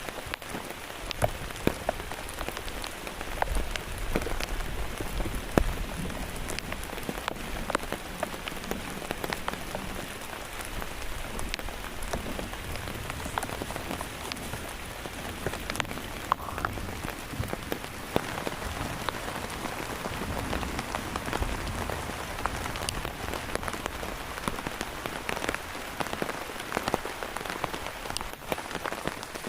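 Steady heavy rain, with many separate drops striking close by, and a brief low rumble a few seconds in.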